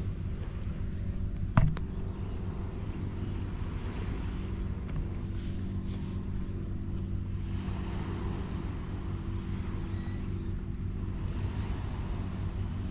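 Steady low engine-like hum running throughout, with a single sharp crack about a second and a half in.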